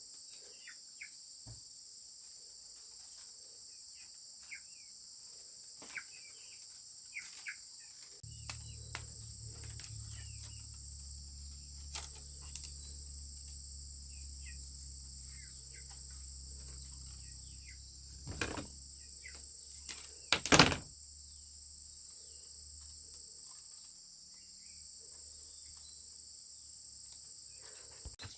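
Steady high-pitched chorus of crickets and other insects, with scattered light knocks and clicks and one loud sharp knock about two-thirds of the way through.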